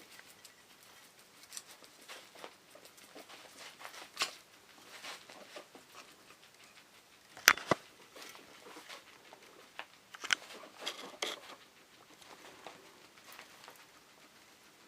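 Guinea pigs rummaging at rolls stuffed with fresh food: scattered rustles and light knocks, with one sharp, louder click about halfway through.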